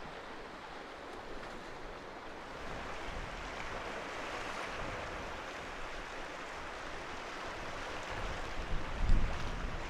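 Sea surf washing on the coast: a steady hiss of breaking water that swells and ebbs. Near the end, wind briefly buffets the microphone with a low rumble.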